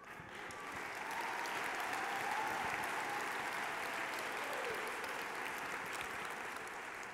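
Audience applauding, swelling over the first second, holding steady, then fading near the end.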